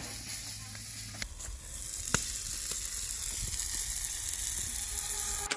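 Chicken drumsticks sizzling hard in barbecue sauce in a hot frying pan, with a few sharp pops.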